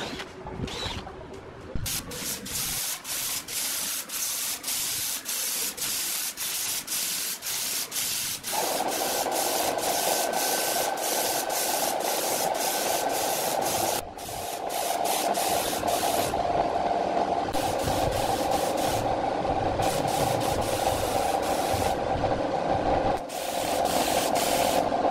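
Compressed-air spray gun fed from a paint pressure pot, spraying a coating onto a plywood subwoofer cabinet. At first the spray hiss breaks off in short regular gaps about twice a second. From about a third of the way in it runs as a steady hiss, with brief breaks near the middle and near the end.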